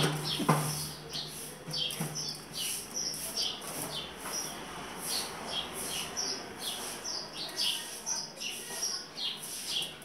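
Small birds chirping in the background, short high falling chirps several times a second. Two sharp knocks come in the first half second and a softer one about two seconds in.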